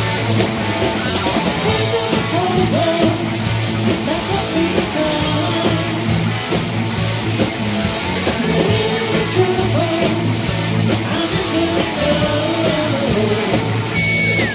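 Live rock band playing: electric guitars with a wavering melodic guitar line over bass guitar and a drum kit with cymbals, steady and loud throughout.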